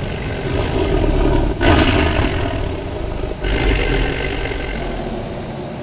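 Monster slug roar sound effect: a loud, rough, growling roar. A fresh roar breaks in about a second and a half in and another just past three seconds, each fading off slowly.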